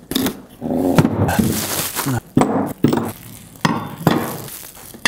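Unboxing noises: a cardboard box cut open and plastic packaging rustling, with rubber-coated magnetic mounts and metal brackets knocked and clinked onto a wooden workbench in a series of sharp taps.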